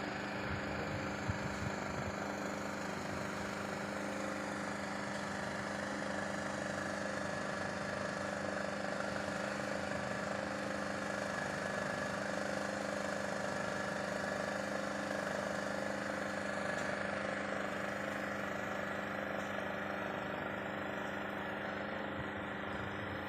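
An engine running steadily at constant speed, its pitch unchanging throughout.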